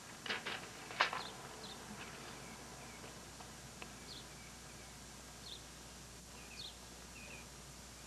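A few sharp wooden knocks in the first second, the loudest about a second in, as a plywood board is handled and set down. After that, birds give short high chirps now and then, often in pairs.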